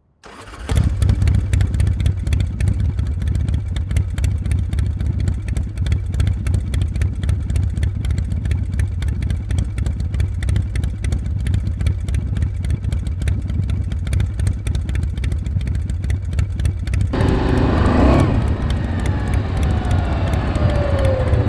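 ATV engine running with a steady, low rumble. About 17 s in the sound grows fuller, and near the end a gliding engine tone joins it.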